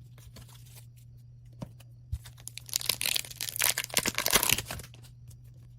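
Hands rustling and crinkling a foil pack of Upper Deck hockey cards, with a few light clicks and then a denser crackling stretch of about two seconds in the middle, over a faint steady low hum.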